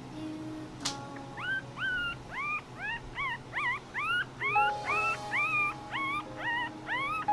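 One-week-old Mi-Ki puppy crying: a quick series of short, high, rising squeals, about two a second, after a click about a second in.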